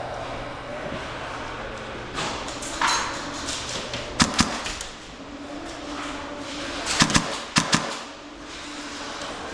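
Airsoft gun shots, sharp single pops: two close together about four seconds in, then four more about seven seconds in.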